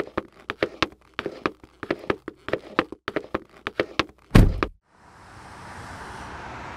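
Footsteps on pavement, about three or four quick steps a second. About four seconds in a car door slams shut with a heavy thud. Then a car engine's noise starts and builds up steadily.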